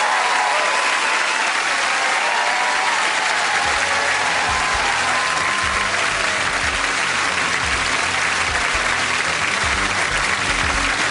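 Studio audience applauding steadily. Music with a low, rhythmic bass line comes in under the applause about three and a half seconds in.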